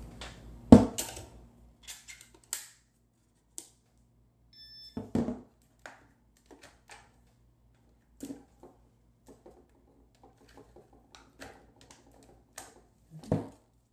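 Scattered clicks, taps and a few thumps of hard plastic gear being handled on a tabletop: a radio transmitter put down and a quadcopter's plastic shell handled. The loudest thump comes about a second in.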